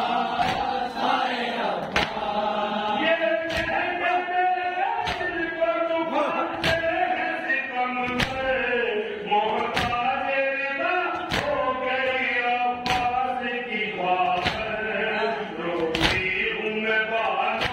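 Male voices chanting a noha (Shia lament) in unison, a lead reciter with a group answering, over rhythmic chest-beating (matam), a sharp slap about every one and a half seconds that keeps time with the chant.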